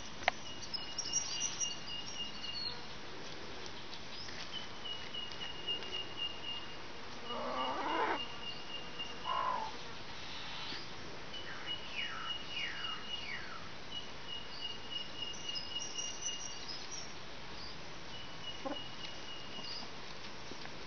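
Birds calling: a high, even trill repeats in runs of one to three seconds, with a few very high chirps and three quick downslurred whistles. A single short, lower call comes about eight seconds in.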